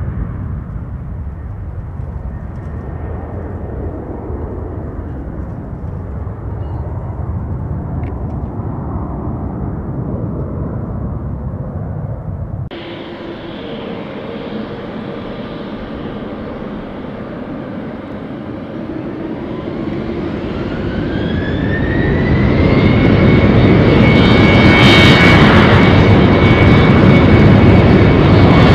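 A twin-engine business jet's engines climbing away after takeoff, a steady low rumble. About halfway in this gives way to a British Airways Embraer E190's General Electric CF34 turbofans spooling up to takeoff thrust. A whine rises and levels off, and the noise grows much louder as the jet begins its takeoff roll.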